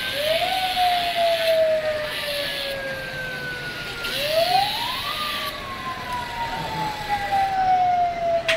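A siren wailing: its pitch climbs quickly and then sinks slowly for several seconds, twice, over steady street noise.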